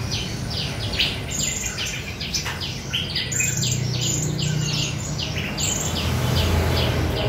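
Many small cage birds chirping together, a dense stream of short, high, downward-sliding chirps several times a second that overlap one another.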